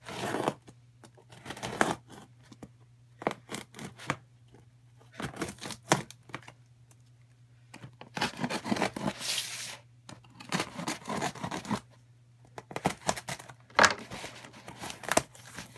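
Cardboard box being torn open by hand, with packing paper rustling, in irregular bursts of tearing and rustling and a couple of sharp snaps.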